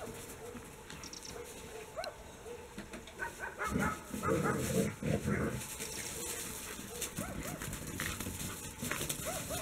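Dogs yipping and barking at play, in short scattered calls with a louder stretch of barking about four to five seconds in.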